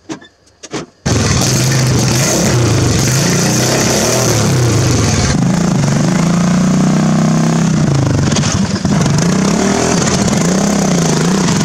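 Poulan Pro riding lawn mower's Briggs & Stratton engine running hard off-road. It starts about a second in after a few clicks, and its pitch rises and falls again and again as the throttle and load change.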